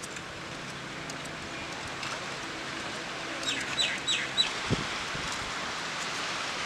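A bird gives four quick, short chirps about halfway through, over a steady outdoor hiss. A single soft thump follows just after.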